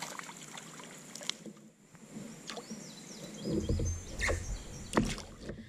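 Outdoor river ambience with a few short bird chirps. From about three and a half seconds in there is low handling noise and a few sharp knocks as a smallmouth bass is handled at a kayak.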